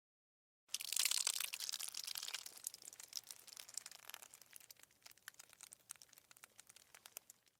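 Gore sound effect of blood bleeding out: a crackling, squelchy gush starts about a second in, is strongest for the first second and a half, then thins to scattered crackles and stops just before the end.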